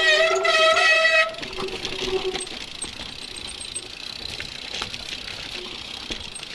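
Mountain bike disc brake squealing: a loud, steady, high-pitched howl that stops about a second in. After that, tyres rolling over a dirt and rock trail with small knocks and rattles from the bike.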